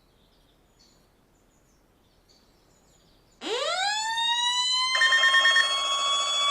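An alert siren sound: after a few seconds of faint hiss, a tone winds up steeply in pitch about three and a half seconds in and levels off into a steady high wail. A second, buzzy alarm sound joins it about a second and a half later.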